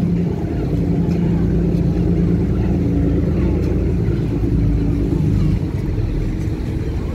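Passenger ferry's engine running with a steady low drone while the ferry manoeuvres alongside the pier, easing off a little near the end.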